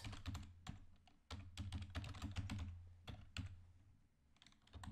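Computer keyboard being typed on: irregular runs of quick key clicks with a short pause about three and a half seconds in, over a low hum.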